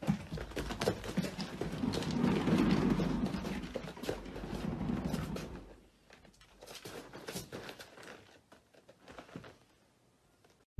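A cat's paws scrabbling over furniture: a jumble of light knocks, taps and scuffs, busiest in the first half, thinning out and dying away near the end.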